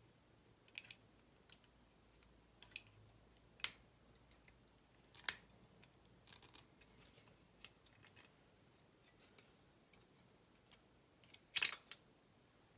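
Metal lock levers from a 7-lever safe lock being handled and set down: scattered sharp metallic clicks and taps, the loudest one about four seconds in and a cluster near the end.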